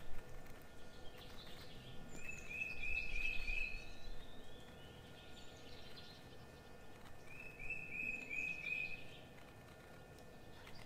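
A bird singing, two phrases a few seconds apart, each a quick run of about five repeated whistled notes. Faint hiss underneath.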